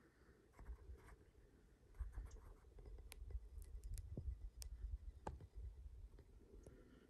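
Faint scattered clicks and scrapes over a low rumble, from footsteps on a dirt trail and the phone being handled. The rumble comes in about two seconds in.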